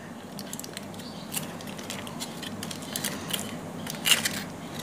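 Aluminium foil crinkling as it is rolled up by hand: a string of light, irregular crackles, with a louder cluster about four seconds in.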